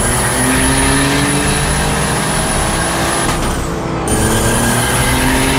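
Turbocharged BMW M50 inline-six in an E36 accelerating hard at full boost, heard from inside the cabin: the engine note climbs steadily, breaks off briefly with an upshift about three and a half seconds in, then climbs again.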